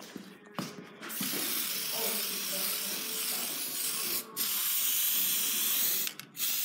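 Aerosol spray paint can spraying in a long steady hiss, starting about a second in after a few clicks, and briefly letting up twice near the end.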